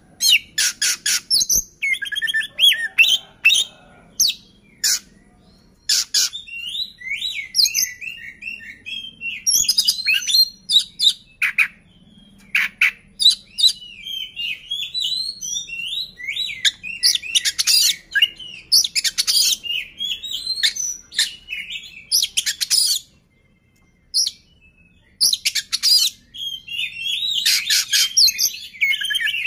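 Oriental magpie-robin singing a long, varied song: quick warbled whistles mixed with many sharp, harsh notes, with a brief pause about three-quarters of the way through.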